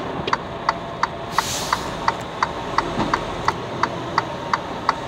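Steady, fast ticking of a truck cab's flasher, about three clicks a second, over the low run of the truck's engine, with a short hiss about a second and a half in.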